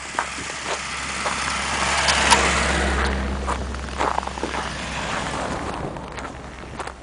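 A car passes by, its engine and tyre noise swelling to a peak two to three seconds in and then fading away, with footsteps crunching in the snow throughout.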